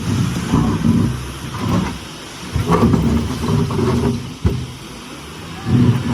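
Heavy diesel engine revving in uneven surges, with a single sharp knock about four and a half seconds in.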